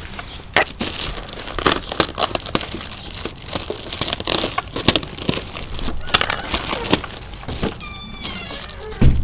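Irregular crinkling, rustling and clicking of things being handled, with a heavier thump near the end.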